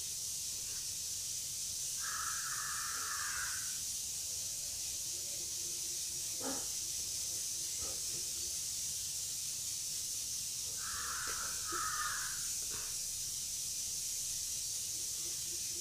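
Steady high hiss of background noise, with a few faint clicks and two brief faint sounds at a higher pitch, one about two seconds in and one about eleven seconds in.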